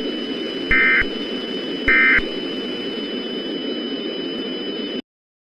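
Two short bursts of Emergency Alert System data tones, the end-of-message code, buzzing warbles about a second apart over a steady static hiss with a thin high whine. Everything cuts off abruptly about five seconds in.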